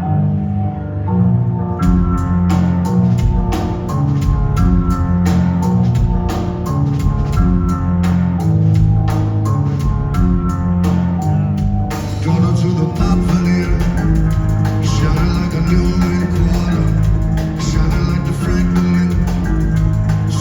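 Live band playing the instrumental opening of a song: bass and held chords at first, then a steady drum beat of about four strokes a second comes in about two seconds in, and the music fills out about twelve seconds in.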